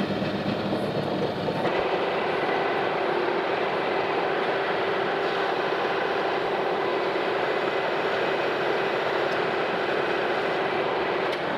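Metal lathe running and taking a turning cut along a shaft end, played back at three times speed: a steady machine noise, with a steady tone joining about two seconds in and stopping just before the end.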